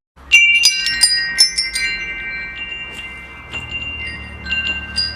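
Wind chimes struck in a quick cluster of strikes after a brief silent gap at the start, their several high tones ringing on together, then a few lighter strikes near the end.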